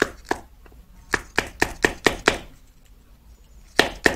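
Kitchen knife chopping at the hard black outer casing of a small 400 V film capacitor, chipping it off piece by piece. There are two sharp knocks, then a quick run of about six at roughly four a second, and after a pause more strikes near the end.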